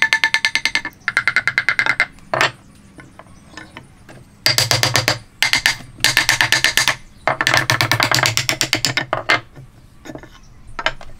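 Wooden mallet tapping the end of a wooden tenon as a joint is driven together, in quick runs of light blows about ten a second, each run with a ringing wooden tone, broken by short pauses and a few single knocks.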